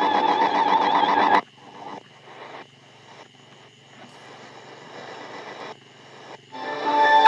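SIHUADON R-108 DSP shortwave receiver tuning across the 31 m band: a station's audio cuts off abruptly about a second and a half in, leaving faint static with a thin steady whistle, and another station's audio comes in near the end.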